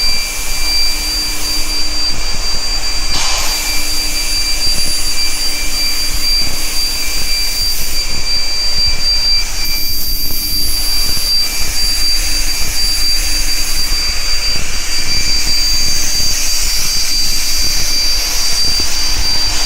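Induction hardening and tempering line for steel bar running: a steady, loud rushing noise with a constant high-pitched whine and a fainter lower hum.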